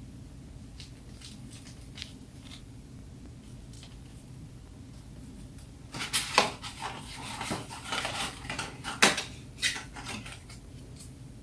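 Small accessories and their packaging handled by hand: a few faint ticks, then, from about halfway, a run of light clicks, taps and rustles lasting about four seconds.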